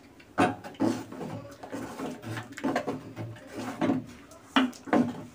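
Metal ladle stirring thick khichuri in an aluminium pot, mixing in the freshly added tempering, with a series of irregular scraping, squelching strokes against the pot.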